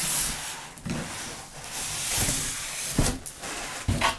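Cardboard box and polystyrene foam packing scraping and rustling against each other as a packed computer case is pulled out of the box, with a few dull knocks.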